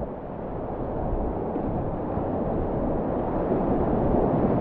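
Whitewater rapids rushing steadily around a kayak, growing a little louder toward the end.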